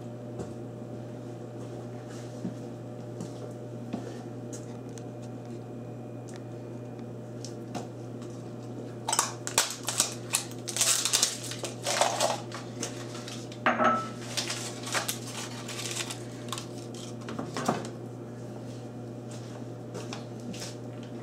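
Clinks and clatter of dishes and containers being handled on a stainless-steel worktop, in a run of short knocks through the middle of the stretch, over a steady low hum.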